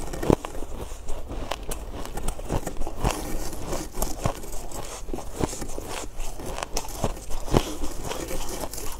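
Frozen ice being chewed close to the microphone: irregular crisp cracks and crunches, several a second.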